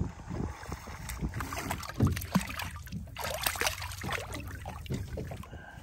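A hooked redfish splashing and thrashing at the surface beside a small boat, water slapping against the hull in irregular bursts, loudest about two seconds in.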